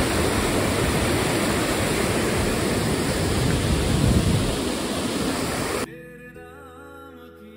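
Steady loud rushing of water, cut off suddenly near the end by quiet background music with a voice singing.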